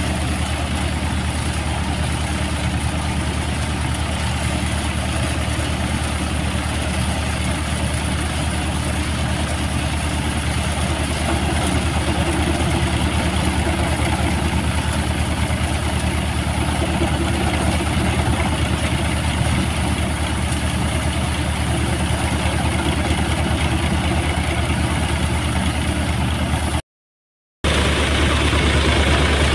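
Massey Ferguson 245 DI tractor's three-cylinder diesel engine running at a steady speed, driving a multicrop thresher whose drum and sieves add a steady noisy din as it threshes. The sound cuts out for about a second near the end.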